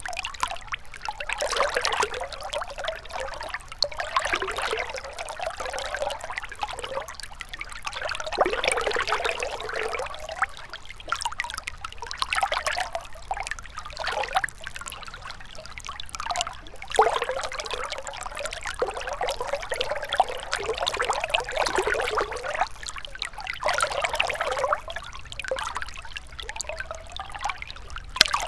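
Gentle river water trickling and gurgling, an uneven wash that swells and eases every second or two.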